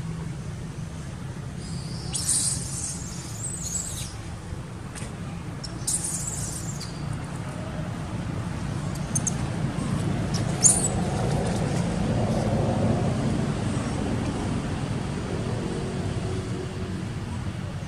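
Steady low outdoor rumble, with a few short high-pitched chirps about two, six and ten seconds in.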